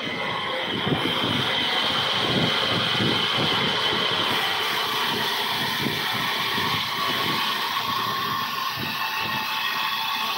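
Vertical band sawmill blade cutting lengthwise through a large log: a steady high whine over a rough, uneven rumble.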